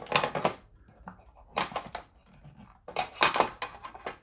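Plastic parts and ribbon cable inside an opened LCD TV being handled: three short clusters of clicks and rattles.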